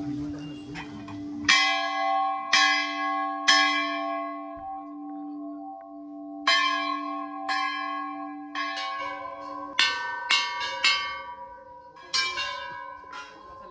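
Hanging brass temple bells struck one after another, each ringing on with a long fading tone. First come three strikes about a second apart, then three more a few seconds later, then a quicker run of overlapping strikes on different bells near the end. A low steady hum carries on underneath the first half.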